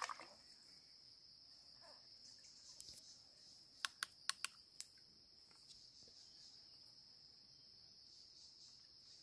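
Steady high-pitched chirring of an insect chorus, crickets, in the streamside forest, with a brief splash of water at the very start. A handful of sharp clicks come in quick succession about four seconds in.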